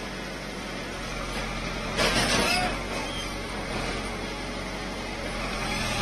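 Excavator's diesel engine running steadily, with a brief louder noisy burst about two seconds in.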